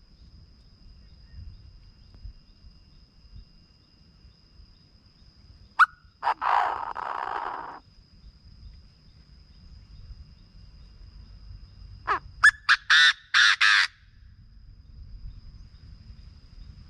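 Chinese francolin calling twice: a sharp note then a long harsh note, and about six seconds later a quick run of short notes ending in two longer ones. A faint low rumble and a faint steady high tone lie under the calls.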